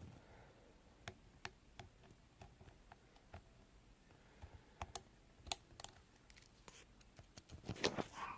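Faint, scattered metallic clicks and ticks of a diamond lock pick working the pin stacks of a Medeco BiLevel mortise cylinder under tension, single-pin picking to set the pins. The clicks come more often and a little louder from about halfway, with a quick cluster near the end.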